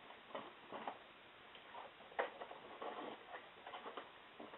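Faint rustling, scraping and light taps of cardboard box flaps being handled and folded open, with a slightly sharper tap about two seconds in.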